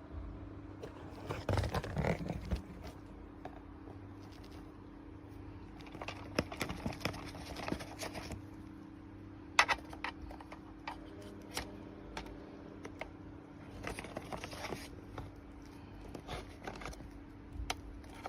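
Handling noise: bursts of scraping, rustling and sharp clicks in several separate clusters, over a steady low hum.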